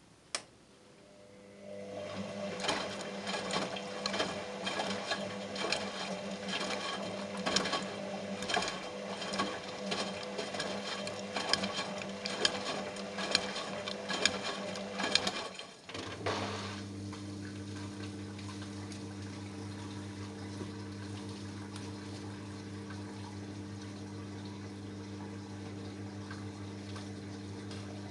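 Front-loading washing machine tumbling its drum, the motor humming under sloshing water and repeated thuds of the waterlogged plush toy dropping. After about 15 seconds the drum stops and a steady pump hum takes over, typical of the drain pump emptying the water.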